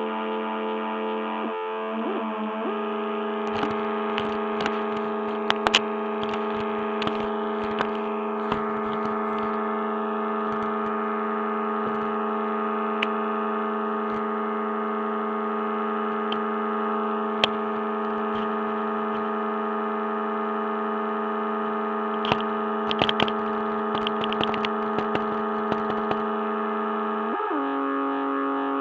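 Drone music: a chord of steady held tones with distorted crackling clicks and noise scattered over it. The chord shifts about two seconds in and changes again near the end.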